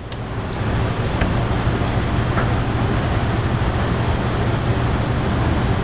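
Steady rumble with a low hum from restaurant kitchen equipment running, with a couple of faint ticks.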